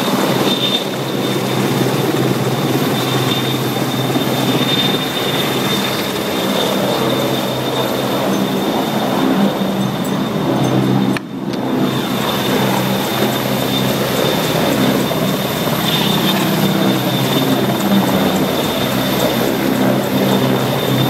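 Army helicopter flying low and close by: a loud, steady drone of rotors and engine with a steady high whine above it.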